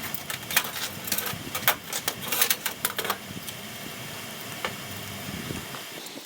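Rapid, irregular sharp clicks and taps over a steady low hum, the clicks thinning out after about three seconds.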